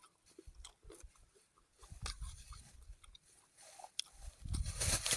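A person chewing fruit close to the microphone, with small crunches and clicks. Near the end a louder rustling noise comes in.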